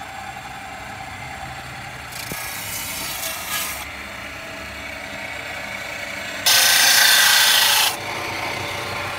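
Bench-top circular saw running steadily while its blade cuts red bricks: a grinding cut about two seconds in, then a louder grinding cut lasting about a second and a half near the end.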